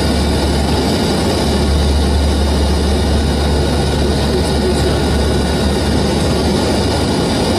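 Cockpit noise of an Antonov An-12 in flight during a steep descent: its four Ivchenko AI-20 turboprops make a steady drone, with a strong low hum under several steady higher whining tones.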